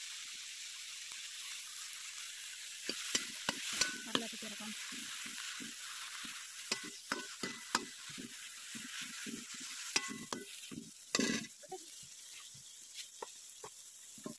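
Crumbled paneer and onions sizzling in hot oil in a metal kadhai, with a steady hiss, while a metal ladle stirs them, scraping and clinking against the pan many times and once in a longer scrape near the end.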